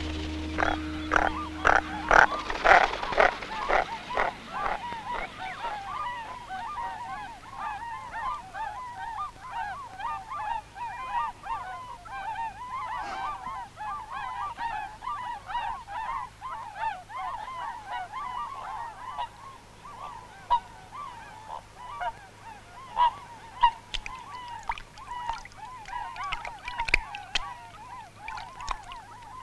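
A large flock of waterbirds calling together: a dense, continuous chorus of short calls, loudest in the first few seconds. Music fades out about two seconds in.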